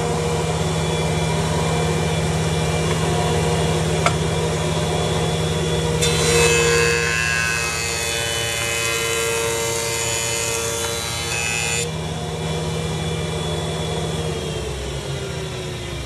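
Powermatic PJ-882 jointer running with a steady hum, then a board fed over the spinning cutterhead for about six seconds with a loud hiss of wood being planed. This is the final pass flattening the face of a cupped board. Near the end the motor is switched off and winds down with falling pitch.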